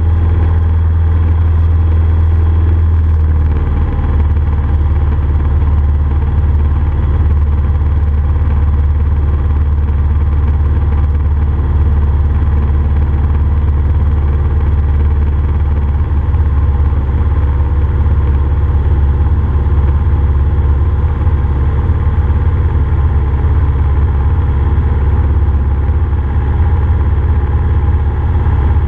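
Cessna F150L's four-cylinder Continental O-200 engine and propeller running steadily in flight, heard inside the cabin. The engine note shifts slightly about three and a half seconds in.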